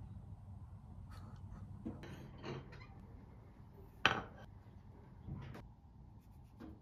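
Kitchen handling sounds: a few light knocks and scrapes, then a ceramic plate set down on the counter with a sharp clack about four seconds in, followed by softer knocks of a tomato and cutting board being handled.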